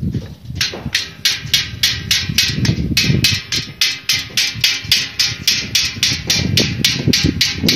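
Steady hammering, about three sharp blows a second, over a low rumble. This fits carpenters nailing wooden formwork for concrete.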